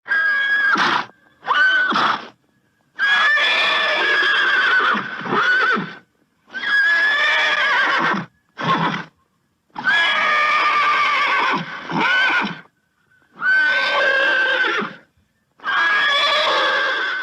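Horse neighing over and over: about eight whinnies, some short and some drawn out for two to three seconds, separated by brief silent gaps.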